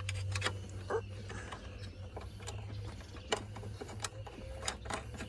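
Irregular light metallic clicks and taps of hands and tools fitting nuts onto the top-mount studs of a BMW E46 front strut in the strut tower, over a steady low hum.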